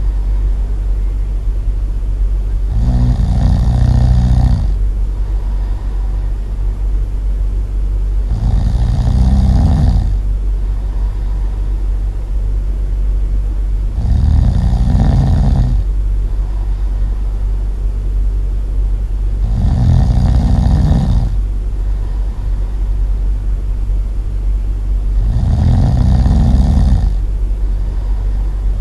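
Loud snoring: five long snores, about one every five and a half seconds, over a steady low hum.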